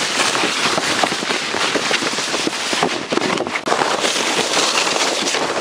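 A sled sliding fast over packed, crusty snow: a dense, continuous scraping crackle, broken by a brief gap about three and a half seconds in.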